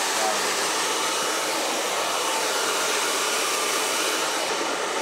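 Professional salon hair dryer blowing steadily, a continuous even rushing noise, as hair is blow-dried.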